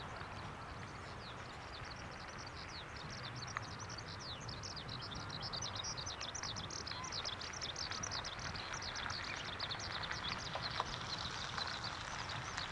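Small birds singing: a fast, continuous run of high, downward-sweeping chirps that gets busier a few seconds in, over a steady low outdoor rumble.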